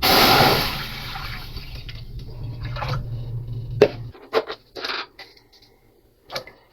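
Tap water running into a cooking pot to fill it. The water starts loud and suddenly, then settles and is shut off about four seconds in. A sharp knock comes just before it stops, and a few short knocks follow.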